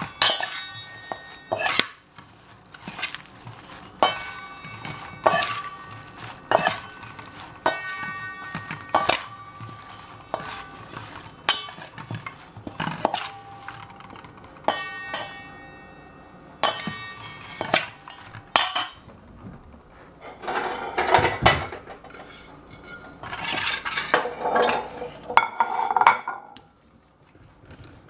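Metal serving utensils clink against a stainless steel bowl as a dressed salad of lettuce and arugula is tossed, about one strike a second, with the bowl ringing briefly after each. Near the end the clinks give way to a denser stretch of scraping and rattling.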